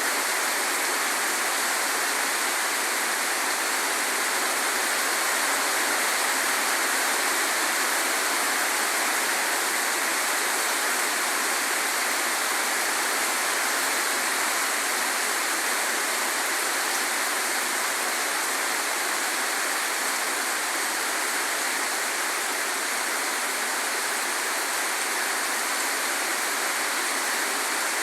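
Heavy rain falling steadily, a dense, even hiss of water that does not change.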